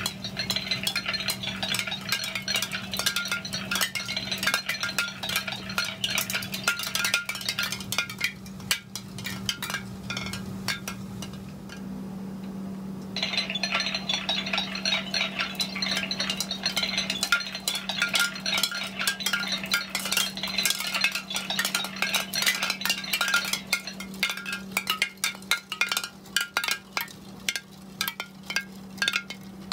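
Gemmy animated bone wind chime running: a dense clinking and chiming goes on almost throughout, over a steady low hum. The chiming thins out for a few seconds around the middle, then comes back abruptly.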